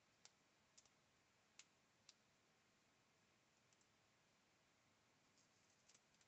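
Near silence: room tone with a few faint, short clicks, about four in the first two seconds and a couple more near the end.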